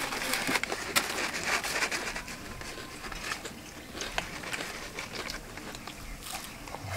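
Paper packet crinkling as a crisp battered chili fritter is taken out, then light crackles and crunches as the fried batter is broken apart and bitten. The crinkling is densest in the first two seconds.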